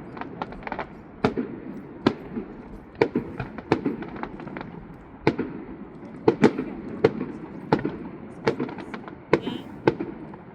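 Fireworks going off at a distance, a string of sharp bangs and cracks at irregular intervals, two or three a second at times, each with a short echo, over a steady low rumble.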